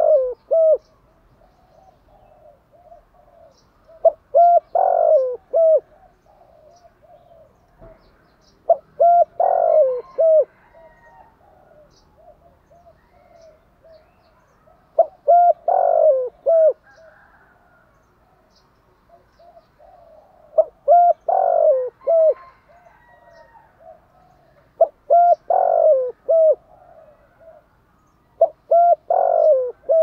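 A decoy spotted dove cooing in the urgent 'gù thúc' style: phrases of several short low coos around a louder, longer middle note, repeated about every five to six seconds.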